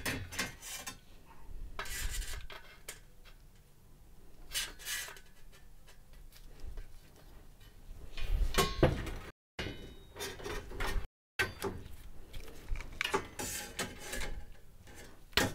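Tin snips cutting the thin sides of an aluminium LED-strip U-profile: irregular short metallic snips and crunches, with the profile rubbing and knocking as it is handled. The loudest run of cuts comes a little past the middle.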